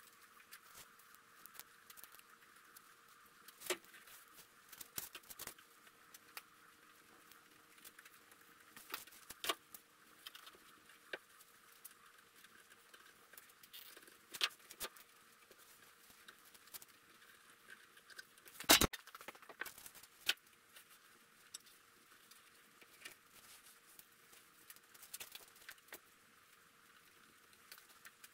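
Scattered soft clicks, taps and crinkles of hands pressing sticky butyl windshield sealing tape into the body channel of a 1969 Camaro and peeling its paper backing, with one sharper knock about two-thirds of the way through. A faint steady hum lies underneath.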